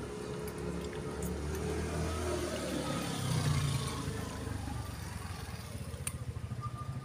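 A motor vehicle's engine passing along the road, loudest about halfway through, then a steady pulsing low engine hum. A single sharp click about six seconds in.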